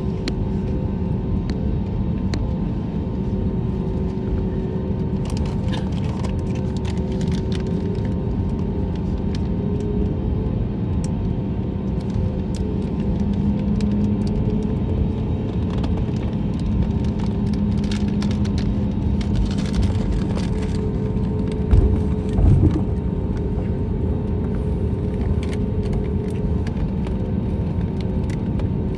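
Airbus A320neo cabin noise during a taxi: a steady low rumble from the engines at taxi power, with a few steady hum tones running through it. Two short low thumps come about three quarters of the way in.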